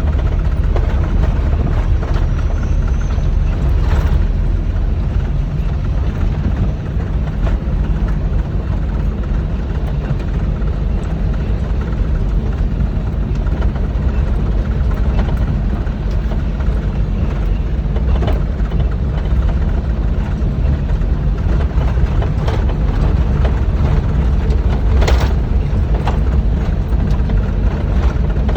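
Rice combine harvester running steadily: a loud, even low drone, with a few brief clicks or rattles.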